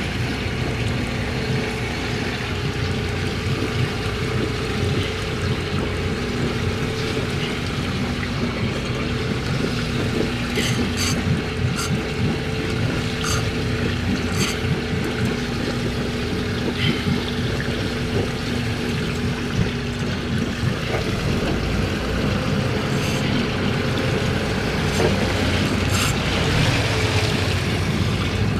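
Boat engine running steadily under water rushing along the hull, with a few sharp clicks around the middle.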